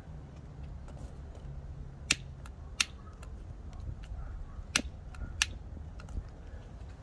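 Long-reach utility lighter clicking four times as its trigger is pulled to light charcoal briquettes in a grill, over a low steady rumble.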